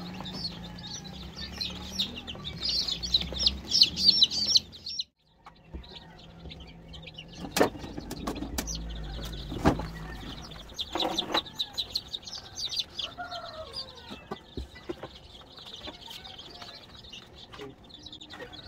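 A crowd of newly hatched upgraded native chicken chicks peeping, dense and rapid for the first few seconds. After a brief break about five seconds in, the peeping goes on more faintly, with a few sharp knocks.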